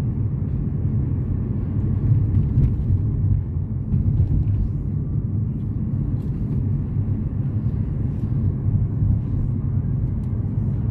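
Steady low rumble of road and engine noise heard inside a moving car, with a few faint clicks.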